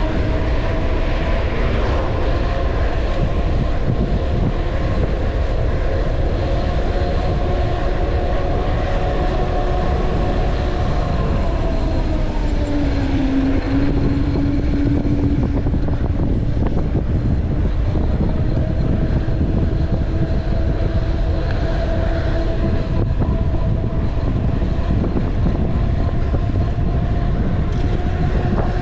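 Mountain bike coasting fast downhill on tarmac: wind rushes over the microphone and the bike gives a steady hum whose pitch dips about twelve seconds in, as it slows, and climbs again later.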